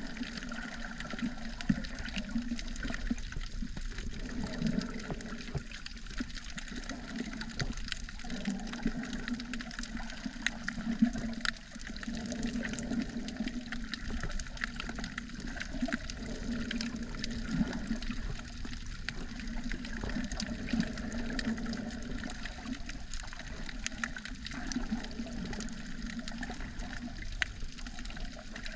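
Underwater ambience picked up by a submerged camera: a muffled, steady wash of water with many scattered sharp clicks.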